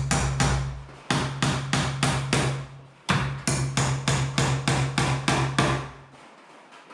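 Hammer driving nails into a wood stud, most likely to mount a blue plastic nail-on electrical box: quick, even strikes at about four to five a second, in three runs with short pauses, stopping about a second before the end.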